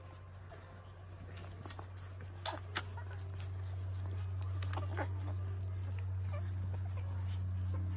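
Young goldendoodle puppies nursing: soft shuffling and a few faint squeaks over a steady low hum. Two sharp clicks come close together a little under three seconds in.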